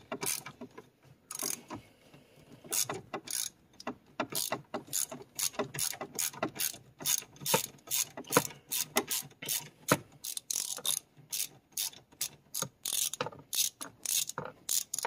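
Hand socket ratchet clicking as it is swung back and forth to back out bolts, a steady run of sharp clicks about two or three a second, with short pauses between strokes.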